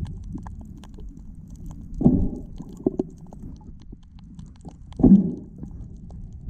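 Muffled underwater sound picked up by a camera held below the surface. A low rush comes about every three seconds, twice here, about two and five seconds in, over a steady low rumble and faint scattered clicks.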